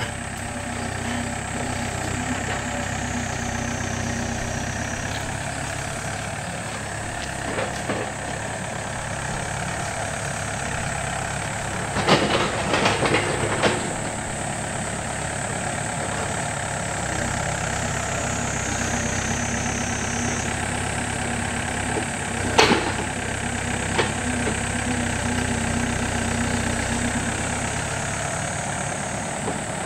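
Yanmar B7 backhoe's diesel engine running steadily, with scattered sharp knocks over it: a short cluster about twelve seconds in and a louder single knock a little past twenty-two seconds.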